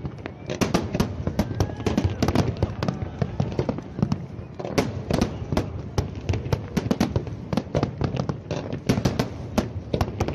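Aerial fireworks display: a dense run of shell bursts with rapid bangs and crackles, briefly thinning about four seconds in before picking up again.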